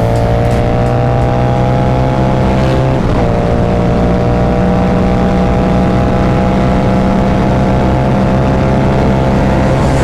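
Harley-Davidson Dyna Super Glide's V-twin engine pulling under acceleration with wind rush. Its pitch climbs slowly, drops briefly at a gear change about three seconds in, then climbs again.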